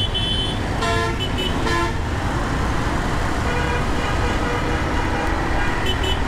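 Vehicle horns honking in dense city traffic: several short toots in the first two seconds and a few more later, over a steady low rumble of traffic engines.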